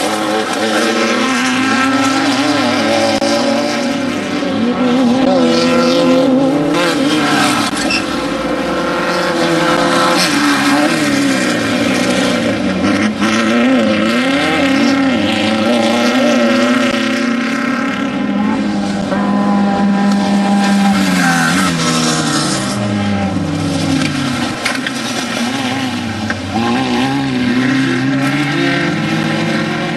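Off-road desert race vehicles' engines running hard, revving up and easing off so the pitch rises and falls again and again.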